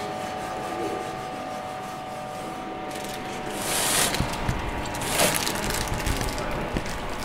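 A cloth rubbing over a steel brake drum from a Lancaster main wheel, with two louder wiping strokes a little past the middle. A faint steady hum sits underneath.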